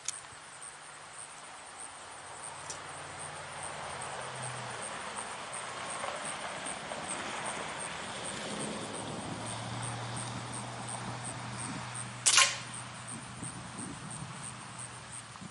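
A single shot from a Beeman QB78 .22 CO2 air rifle, a sharp crack about twelve seconds in, over a rush of wind that swells before it.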